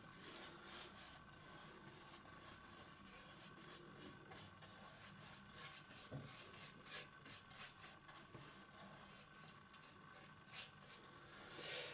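Faint swishes and rubs of a paintbrush spreading varnish in thin strokes over a painting's surface, a short stroke at a time, the loudest stroke near the end. A faint steady hum lies underneath.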